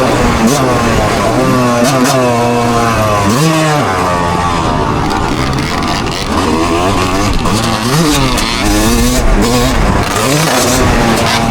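A loud vehicle engine revving over and over, its pitch rising and falling every second or so without settling.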